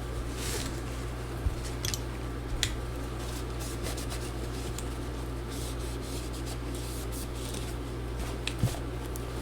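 Light rubbing and scratching with scattered small clicks from cleaning the area under a MacBook Pro's trackpad, over a steady low hum.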